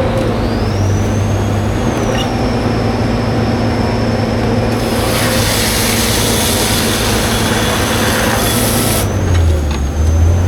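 Timberjack 608 harvester's diesel engine and hydraulics running under work, with a high whine that rises and falls. A loud hiss comes in about five seconds in and stops about four seconds later, and the engine note deepens near the end.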